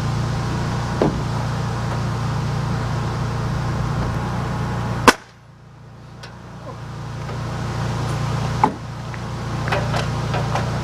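Steady low machine drone broken by sharp bangs, the loudest about five seconds in and another near nine seconds, with a few lighter clicks near the end.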